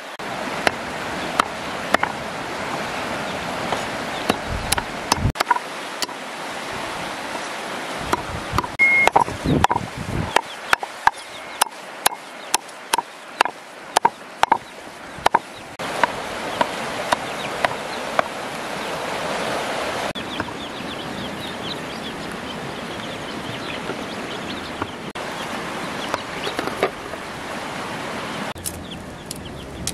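A heavy cleaver chopping raw meat on a round wooden chopping block: sharp, irregular knocks in quick runs, thinning out in the second half, over the steady rush of a stream.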